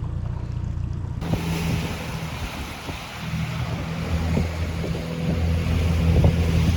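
Boat motor running steadily under way, with wind hiss on the microphone that comes in suddenly about a second in.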